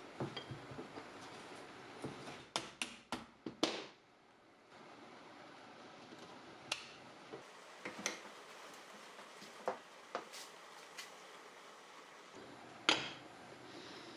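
Metal parts handled on a metal workbench: a quick run of light clicks and knocks, then scattered single taps and one louder knock near the end, as a compressor pulley with its bearing and a small hydraulic pump are fitted together and set down.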